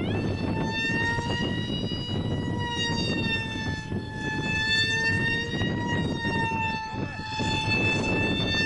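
Turnigy 3648 1450 kV brushless electric motor of a radio-controlled F-22 Raptor model in flight, giving a high whine with several overtones. Its pitch rises sharply right at the start, then holds with slow small rises and falls, over a steady low rushing noise.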